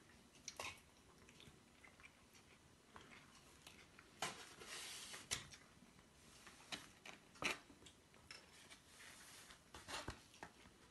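Near silence with a scattering of faint clicks and a short rustle about four seconds in.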